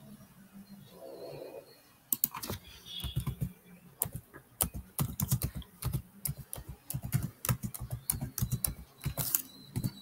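Fast, irregular typing on a computer keyboard, the key clicks starting about two seconds in.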